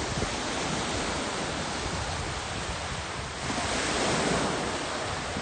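Small waves breaking and washing up on a sandy beach, a steady surf hiss that swells louder about three and a half seconds in as a wave runs up the shore.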